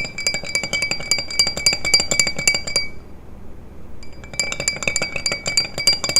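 A metal spoon stirring in a drinking glass, clinking rapidly against the side so that the glass rings, mixing a spoonful of cough syrup into boba milk tea. The stirring stops about three seconds in and starts again about a second later.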